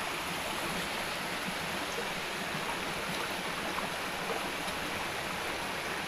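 Water of a shallow rocky stream rushing steadily over stones.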